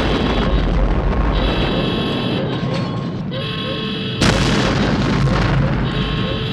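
Vintage Cinesound library explosion effects: continuous rumbling, crackling destruction with a sudden big blast about four seconds in. A pitched, alarm-like electronic tone switches on and off over it about every two seconds.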